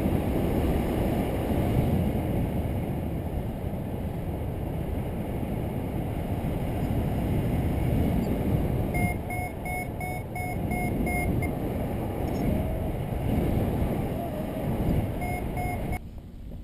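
Strong wind buffeting the microphone in flight, a steady low rush. A paragliding variometer beeps in short quick pips, about three a second, for a couple of seconds midway and again briefly near the end: its climb tone, the sign of rising air.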